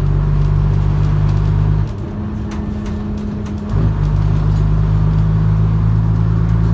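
Diesel engine of a Leyland Atlantean bus under way, heard from inside the passenger saloon: the engine note falls away about two seconds in as the throttle eases, then picks up strongly again nearly two seconds later, with light rattles from the bodywork.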